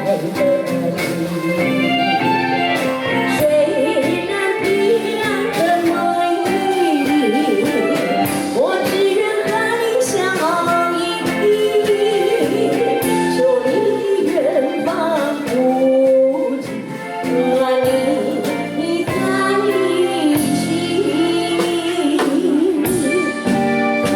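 A woman singing a pop song over instrumental backing music, with a short dip in loudness about two-thirds of the way through.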